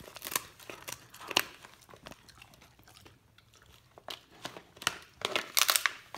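A large dog gnawing and crunching on a chew stick, with irregular crunches and clicks, sparse around the middle and busier near the end.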